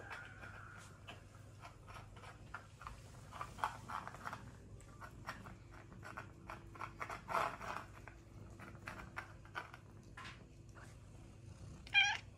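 A cat eating wet food out of a small tin can: irregular wet clicks of chewing and licking, with small scrapes against the tin. A short meow near the end.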